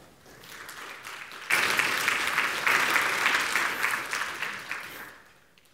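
Audience applauding, growing loud about a second and a half in and dying away near the end.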